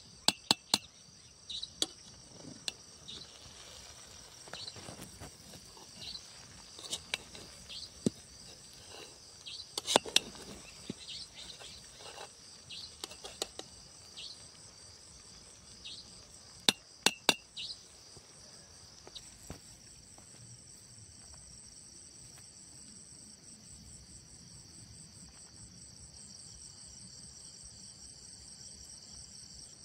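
Sharp metallic clinks of a steel serving spoon striking the rim and sides of a steel cooking pot as rice is scooped out, in scattered clusters through the first eighteen seconds or so. Crickets chirp steadily throughout and are all that remains near the end.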